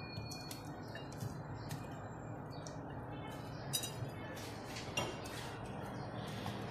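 Light ticks and clinks of a knife cutting through a banana against the cling-film-covered glass pie dish, and of slices being set down in it, with two sharper clinks a little past the middle.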